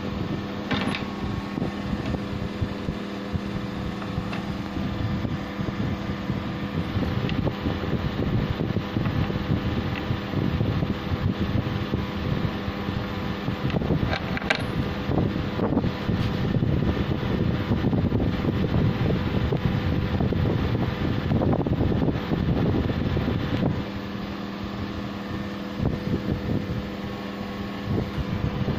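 A steady mechanical hum like an electric fan's. Through the middle stretch there is denser rustling and scratching, with a few sharp clicks, as a dog paws and noses at a jute floor mat.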